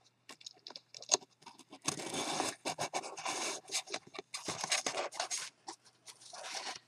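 Cardstock being handled and pressed into place by hand, paper scratching and scraping in several short bouts after a few light clicks.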